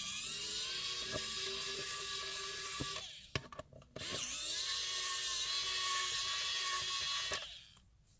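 Cordless electric screwdriver running in two bursts of about three seconds each, a high whine that rises as the motor spins up, as it backs out the screws of a plastic multimeter case. A few small clicks fall between the two runs.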